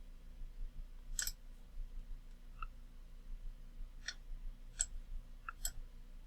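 Computer mouse clicks: about four short, sharp clicks spread over several seconds, with a couple of fainter ticks between them, over a faint low hum.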